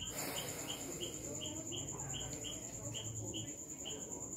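Regular high chirping, about three chirps a second, over a constant high-pitched whine, typical of an insect.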